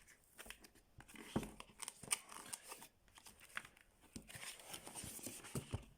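Packaging being handled as a boxed hair crimper is worked out of its tight-fitting box: rustling and crinkling with scattered small clicks and knocks.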